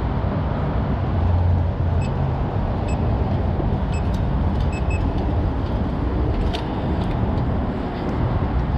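Electronic keypad lock on a metal security gate beeping five times as buttons are pressed, short single-pitch beeps, the last two in quick succession. Behind them is a steady low rumble, with a couple of faint clicks about two-thirds of the way through.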